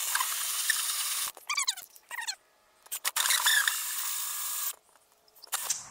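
Cordless drill driving a 2 3/8-inch hole saw into a wooden board, cutting in two bursts of about a second and a half each with short stops between.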